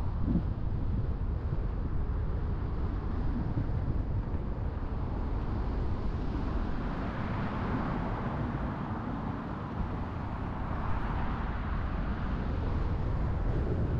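A car driving on the road: steady low rumble of road and tyre noise, with a hiss that swells and fades twice.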